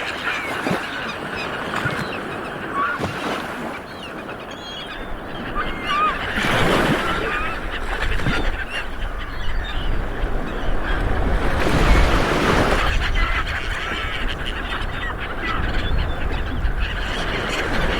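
Ocean waves washing in, swelling twice to a louder break, with many birds giving short honking calls over the surf.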